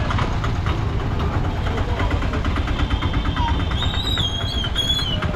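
Low, steady rumble of a motor vehicle engine running nearby amid street noise. About four seconds in, a high warbling whistle sounds twice.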